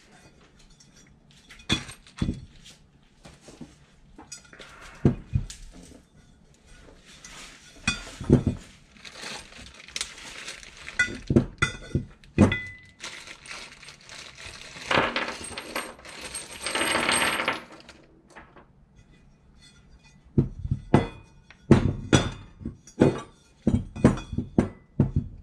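Cast aluminium intake manifold sections knocked and set down on a cloth-covered workbench, with small bolts and brass fittings clinking. Irregular sharp knocks and clicks, plus a longer rustle of a plastic parts bag a little past halfway.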